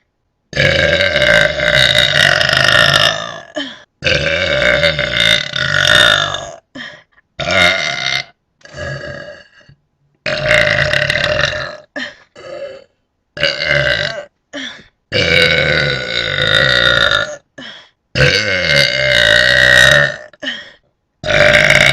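A person belching over and over: five long, loud, drawn-out burps of two to three seconds each, with shorter burps in between.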